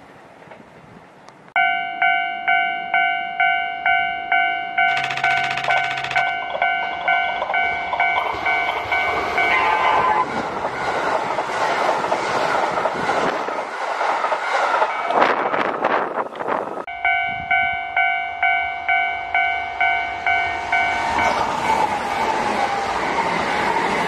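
Level crossing warning bell ringing about twice a second, then a Kintetsu Osaka Line electric train passing at speed with a loud rumble and clatter of wheels on rail that drowns the bell. The bell is heard again in a gap in the train noise and stops near the end while the train runs on.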